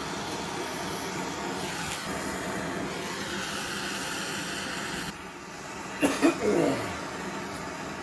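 Hand-held gas torch burning with a steady hiss while heating copper pipe fittings for soldering. The hiss drops away about five seconds in, and a brief louder sound follows about a second later before the hiss resumes.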